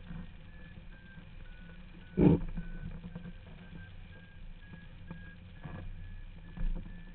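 Hang-gliding variometer beeping in short tones about twice a second, their pitch stepping up and down, over a steady rush of wind on the microphone. A loud knock comes about two seconds in, and a smaller one near the end.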